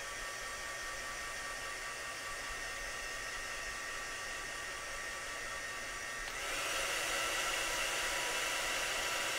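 Handheld craft heat gun blowing steadily to dry freshly applied paint: an even rush of air with a faint motor whine. About six seconds in it gets louder and the whine rises a little in pitch.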